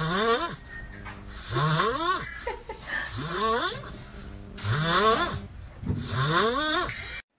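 A pet snoring, about five breaths, each with a wheezy tone rising in pitch, roughly one every second and a half. The sound cuts off abruptly near the end.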